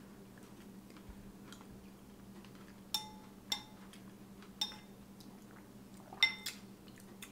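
Metal spoons clinking against ceramic soup bowls while eating: about five light clinks with a brief ring, the first about three seconds in and two close together near the end.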